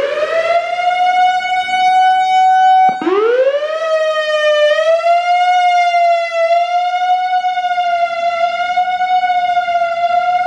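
Whelen WPS-3000 electronic outdoor warning siren. Its tone sweeps up from low to a steady high pitch, breaks off abruptly about three seconds in, then sweeps up again and holds a steady, slightly wavering tone as the Attack signal is started a second time.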